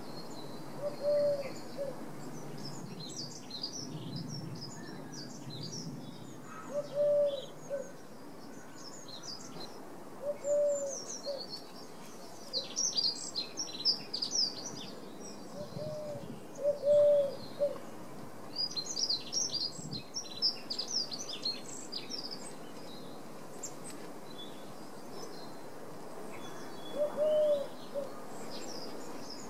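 Woodland birdsong: songbirds singing quick, high chirping phrases in bursts every few seconds. Now and then a lower, single cooing note sounds, twice in quick succession near the middle.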